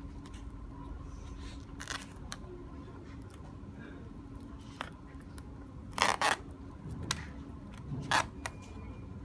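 Hands peeling and handling a laptop's flat display cable on the back of the screen lid: small scattered clicks, with two short rasping rips about six and eight seconds in as the cable comes away from its tape.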